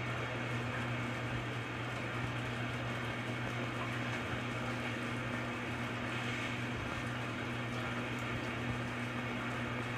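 Steady rush of running water, with a low, even hum underneath.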